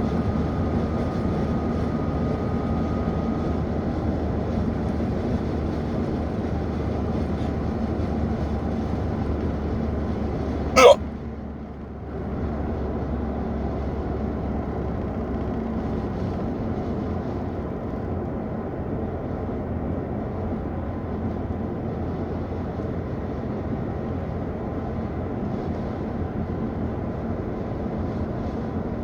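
One sharp, loud hiccup about eleven seconds in, from a man with a long-running bout of hiccups. It sounds over the steady low drone of a car's cabin on the move.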